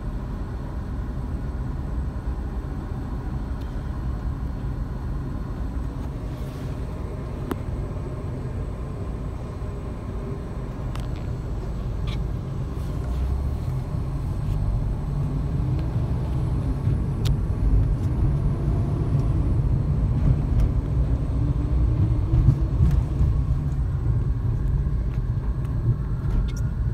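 Low engine and road rumble heard from inside a car's cabin. It grows louder from about halfway through as the car gets moving.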